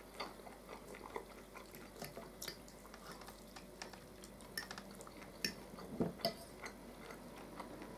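Quiet eating sounds: a fork clicking and scraping on a plate, with chewing and mouth smacks, as scattered small clicks at uneven intervals, a few louder ones around six seconds in.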